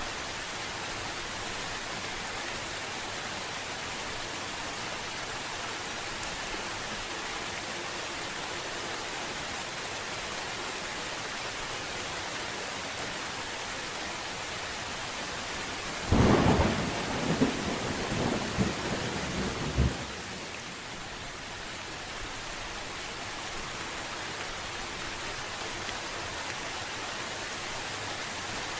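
Steady rain falling, with one sudden clap of thunder a little past the middle that rumbles on for about four seconds before the rain alone returns.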